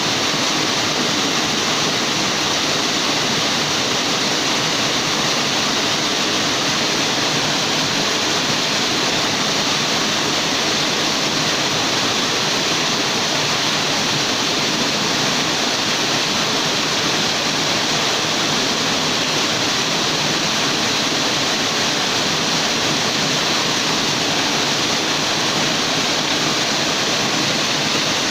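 Waterfall: a steady, loud rush of falling water with no change or break.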